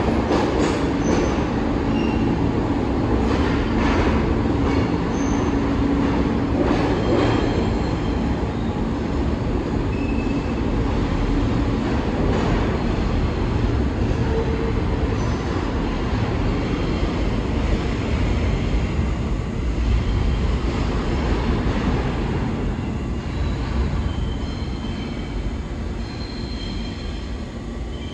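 New York City subway train running through the station: a steady rumble of steel wheels on rail with short, high wheel squeaks scattered through it, growing gradually quieter toward the end.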